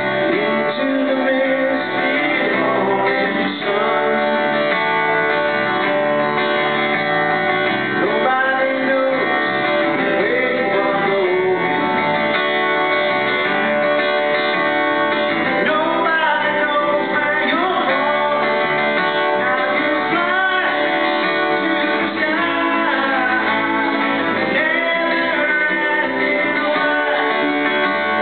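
Live band music led by a guitar, with bass and drums, playing without a break.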